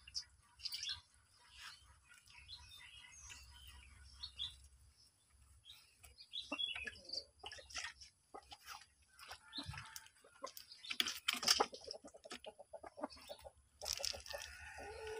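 Water splashing and dripping as a wet cloth is dipped in a steel bowl and squeezed and wiped over a rooster, with soft clucks from the rooster. The splashing grows louder near the end as water runs off the bird.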